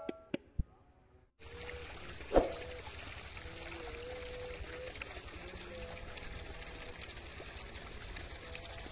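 Steady hiss of an irrigation water jet spraying, starting about a second and a half in, with one sharp knock about two and a half seconds in.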